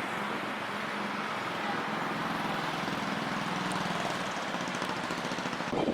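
A steady engine drone from a vehicle, with a low hum.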